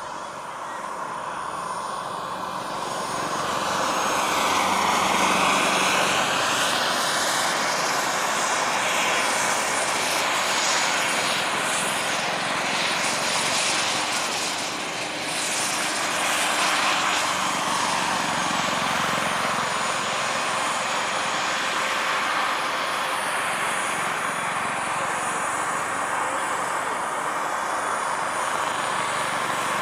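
The turbine engine and rotors of a large radio-controlled Bell JetRanger scale helicopter, running as it lifts off and hovers. It is a dense rushing rotor and engine sound with a thin, steady high turbine whine. It swells over the first few seconds, dips briefly about halfway through, then holds steady.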